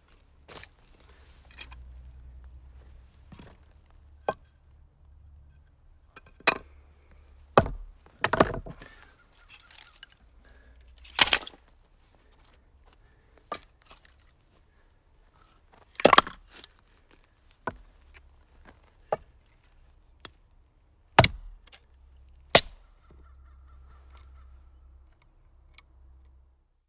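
Firewood being split: a series of sharp chopping strikes and cracks of wood splitting, irregularly spaced a second to a few seconds apart, a few of them much louder than the rest.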